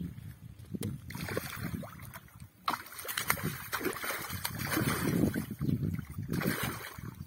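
A large hooked carp thrashing at the water's surface near the bank, making irregular splashes and sloshing as it is played in on the line.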